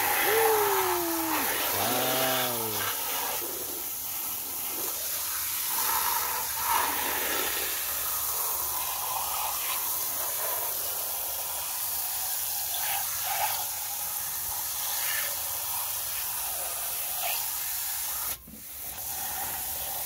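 Steady hiss of a thin water jet spraying and splashing over mud-covered plastic toy vehicles, rinsing the mud off. The sound cuts out briefly near the end.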